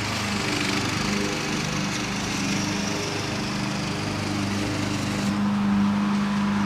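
Small gasoline engine running steadily, a continuous drone.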